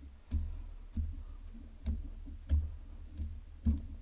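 Hand tools clicking and knocking against a 1939 Farmall H carburetor as it is worked apart, about six sharp clicks at uneven spacing over a low hum.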